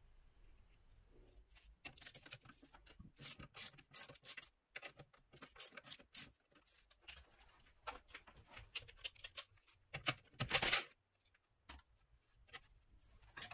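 Irregular clicks, clinks and scrapes of tools and metal parts being handled, with one louder, longer burst of noise about ten seconds in.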